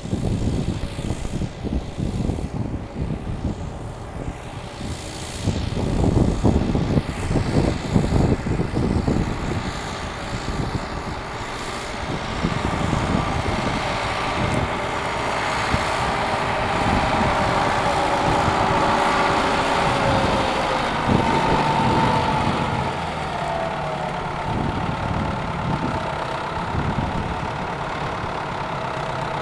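Farm tractor engine running, with wind gusting on the microphone in the first half; the engine sound turns steadier and a little louder from about halfway through.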